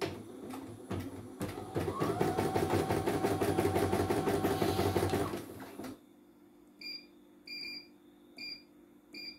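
CNY E900 computerized embroidery machine running for about four seconds with a fast, even mechanical chatter and whir. Near the end, four short electronic beeps from its control panel buttons.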